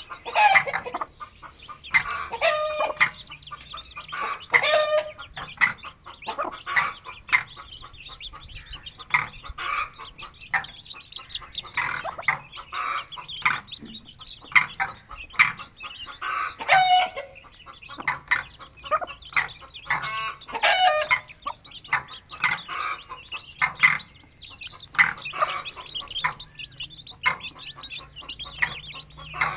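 Aseel hen clucking in a run of short calls with a few longer ones, over a steady chatter of chicks peeping.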